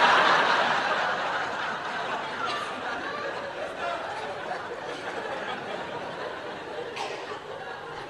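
Audience laughing, loudest at the start and slowly dying away.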